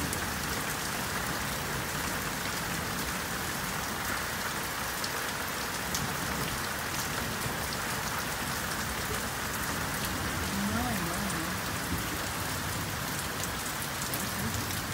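Heavy rain falling steadily, with water streaming off a roof edge.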